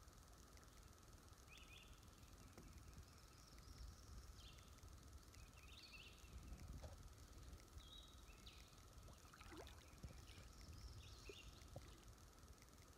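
Near silence: faint outdoor river ambience with a low rumble and scattered short, high bird chirps every second or two.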